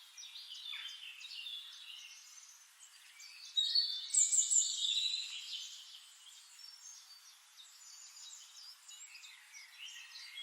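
Several small birds singing and chirping together in quick trills and high notes, with a louder stretch of song starting about three and a half seconds in.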